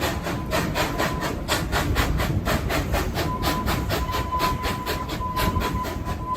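Narrow-gauge steam locomotive running, its exhaust chuffing in an even rhythm of about five beats a second. A faint steady high tone joins about halfway.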